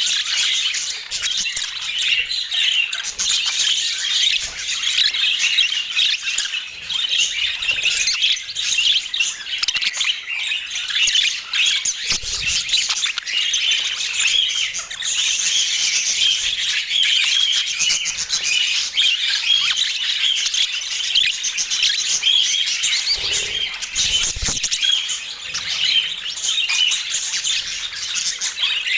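A flock of budgerigars chattering, a dense, unbroken twitter of many overlapping chirps and warbles with occasional squawks.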